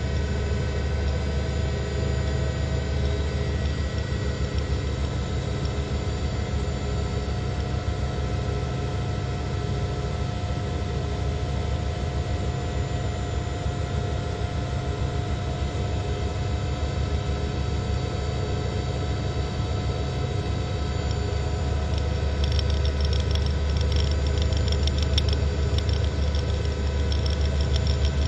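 News helicopter's turbine engine and rotor running: a steady low drone with constant whining tones. A light rattle joins in the last few seconds.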